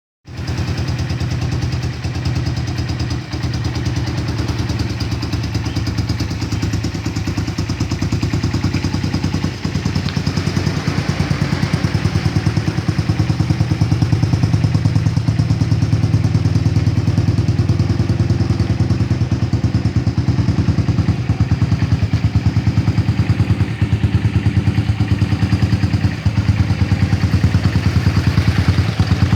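Kawasaki KZ200's single-cylinder four-stroke engine running steadily at idle, with an even fast pulse, in an engine the seller calls healthy.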